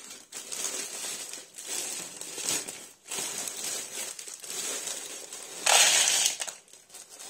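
Plastic bag of frozen mixed vegetables crinkling as it is handled, then, about six seconds in, a brief loud rush of frozen vegetable pieces pouring into a plastic bowl.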